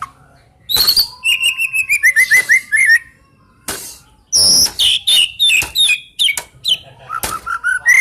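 A murai, a Copsychus songbird, singing loud, varied phrases of quick whistled notes, among them a falling run of repeated notes, with a pause of about a second midway.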